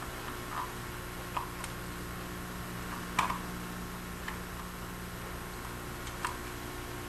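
A handful of small, irregular clicks as a jeweler's flathead screwdriver turns a tiny retaining screw and touches the endoscope's metal and plastic parts, the sharpest about three seconds in, over a steady low hum.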